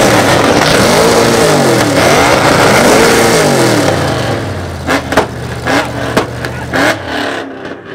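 Performance car engine revved hard several times, its pitch sweeping up and falling back about once a second, then settling to a lumpy idle broken by several sharp exhaust pops.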